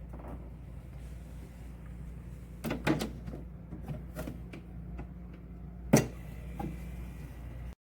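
A few sharp knocks and clicks of a small door or hard plastic case being handled, over a steady low hum. There is a cluster about three seconds in, another at about four seconds, and the loudest knock near six seconds. The sound cuts off abruptly just before the end.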